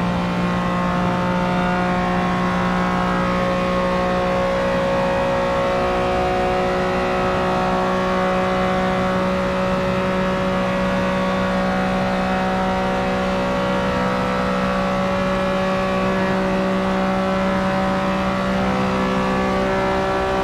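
Many engines running at once in one dense, steady drone: chainsaws held at high revs layered with a Lamborghini Countach's engine, several pitches sounding together without rising or falling.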